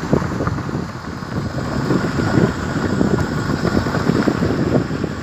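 Wind buffeting the microphone of a moving vehicle on a dirt road, over a steady low rumble.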